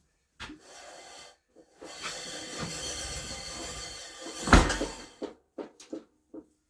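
Handling noise from something being moved: a short click, then a couple of seconds of scraping, a loud knock about four and a half seconds in, and then a few light clicks and taps.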